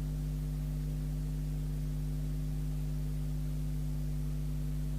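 Steady low electrical hum at mains frequency, with evenly spaced higher overtones and no change in level.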